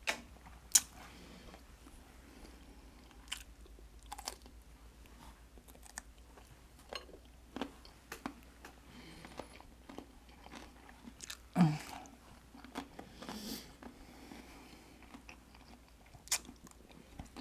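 A person eating close to the microphone: intermittent bites and chewing with sharp mouth clicks and smacks, and a louder bite or slurp a little past halfway.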